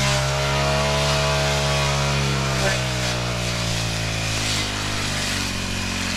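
A small petrol engine running steadily at low speed, its pitch sagging slowly and then climbing again at the very end.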